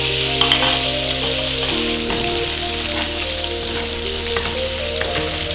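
T-bone steak sizzling as it fries in hot oil in a pan, a steady hiss with a few small crackles in the first second.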